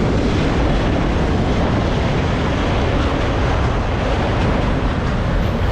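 Steady rush of wind noise over the microphone while riding fast on an electric dirt bike, mixed with the running noise of a train alongside.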